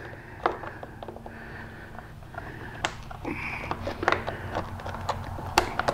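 Scattered small clicks and ticks of pliers and spade connectors as the pink speaker wires are pulled off a Harley batwing fairing's speaker pod, with a faint steady hum underneath.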